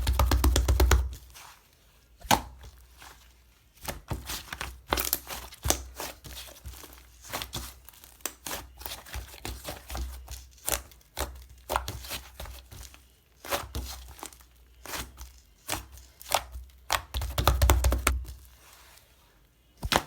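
Fluffy white clay slime being pressed, poked and stretched by hand: irregular crackling pops and soft squelches, with heavier presses at the start and near the end.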